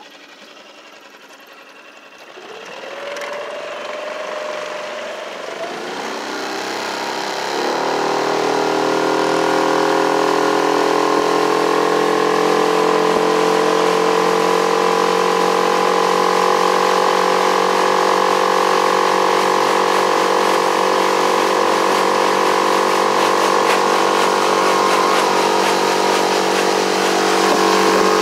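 2019 Yamaha 6 hp four-stroke outboard motor being throttled up: fairly quiet at first, rising in pitch and loudness over several seconds, then from about eight seconds in running steadily at wide-open throttle.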